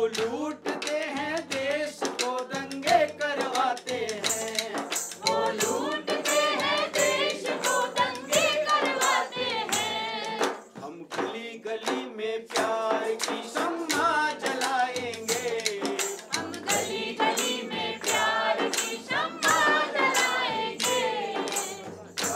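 A group of men and women singing a Hindi protest song, kept in time by hand claps and hand-held percussion such as a shaker and small hand cymbals beating steadily.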